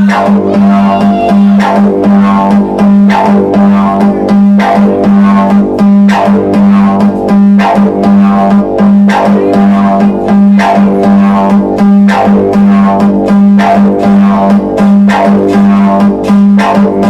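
Live industrial electronic music: a loud held drone near 200 Hz under layered noisy tones, driven by a steady, evenly repeating beat.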